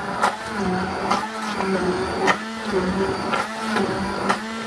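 Electric hand-held stick blender running in a steel pot of cooked beetroot, pureeing it; its motor hum wavers in pitch as the blade works through the chunks. Sharp knocks come about once a second as the blender head bumps the pot.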